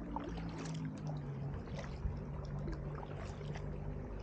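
Kayak paddling: water splashing and dripping from the paddle blades in a string of small irregular splashes, over a low steady hum.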